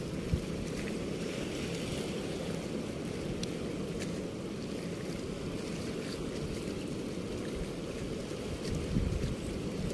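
Steady low rumble of floodwater pouring through a weir's sluice gate, mixed with wind buffeting the microphone, with a few low bumps near the end.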